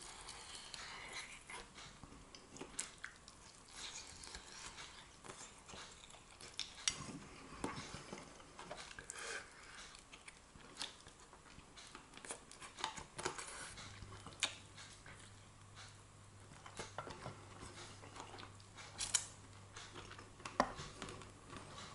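Quiet eating sounds: a knife and fork clicking and scraping on a plate at irregular intervals, with some chewing. A faint low hum comes in about two-thirds of the way through.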